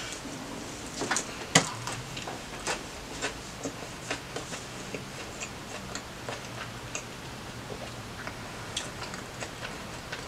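Close-miked chewing of a mouthful of Subway steak and cheese sandwich: irregular moist clicks and crunches several times a second. The loudest come about a second and a half in, and they grow softer and sparser later.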